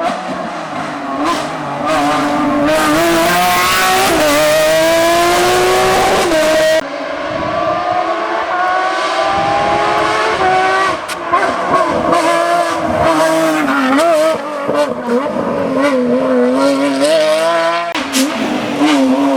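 Porsche 911 GT3 (997) rally car's flat-six engine driven hard: pitch climbing through the gears with quick upshifts, then, after a sudden cut, revving up and down as the driver lifts and reapplies the throttle.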